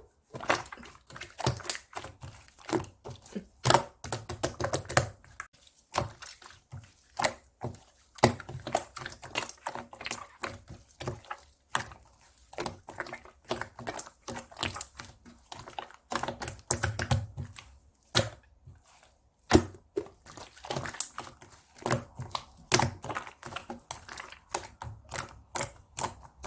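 Hands squishing and pressing a thick cream cheese slime, making rapid, irregular sticky clicks and pops, with a few short pauses.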